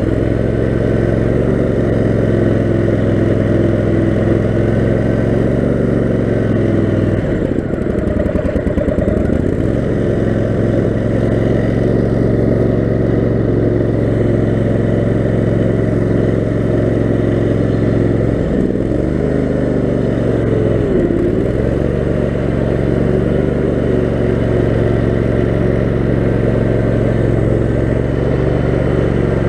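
Kohler 18 HP Command engine of a 6x4 offroad lawn mower running steadily, its revs dropping and climbing back twice, about a quarter of the way in and again about two thirds of the way through.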